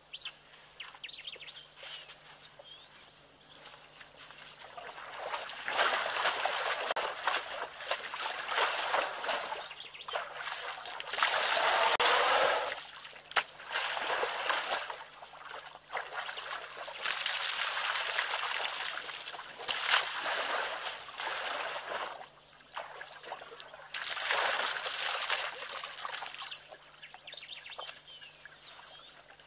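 An African elephant and calf wallowing in a shallow muddy pool: splashing and sloshing of mud and water in several bouts of a few seconds each, loudest about halfway through. A faint steady hum lies beneath it.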